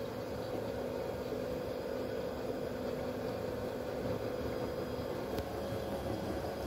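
LG DirectDrive front-loading washer-dryer running, giving a steady mechanical hum over a low rumble.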